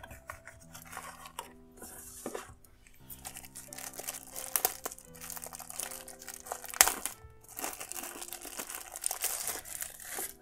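Thin white wrapping crinkling and rustling as it is pulled and unwrapped by hand from a small charger, with a sharp crackle a little before seven seconds in. Soft background music with held notes plays throughout.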